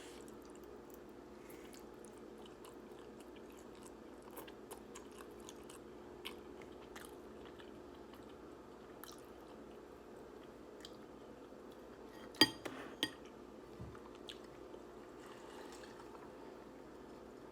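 A person chewing instant ramen noodles close to the microphone, with scattered small mouth clicks and one sharp click about two-thirds of the way through. A steady low hum sits underneath.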